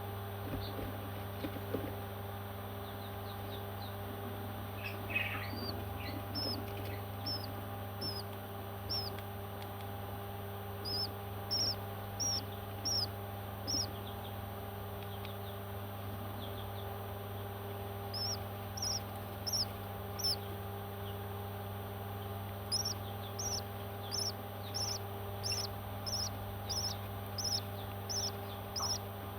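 Baby parrots giving short, high chirps in runs of about two a second, with pauses between the runs, over a steady low hum.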